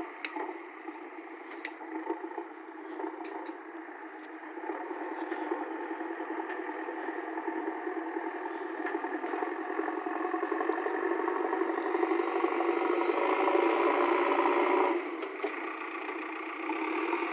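JCB 3DX backhoe loader's diesel engine running and working under load, louder from about four seconds in and easing off near the end, with a few sharp knocks near the start.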